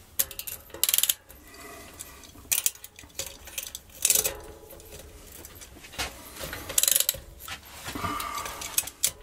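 Metal bike tools clinking and rattling against a bicycle's rear cassette: a chain whip and cassette lockring tool being handled and fitted, with about half a dozen sharp, irregularly spaced clinks.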